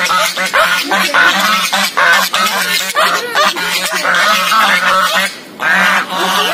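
A group of geese honking loudly, many harsh calls overlapping with hardly a break, with a short lull about five seconds in.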